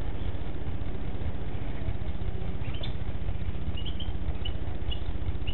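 European goldfinches giving short, high chirping calls, several in quick succession from about halfway in, over a steady low hum.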